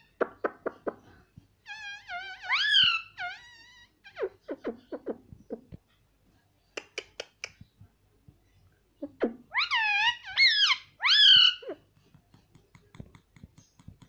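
Indian ringneck parakeet giving short calls that swoop up and down in pitch, in two bunches a few seconds apart. Between them come runs of sharp taps as its beak pecks at a small mirror on a plastic lid.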